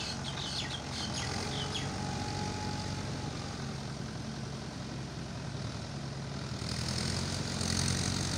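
Farm tractor engine running steadily as it works through a flooded paddy field, growing louder near the end as it comes closer. Birds chirp with short falling calls in the first couple of seconds.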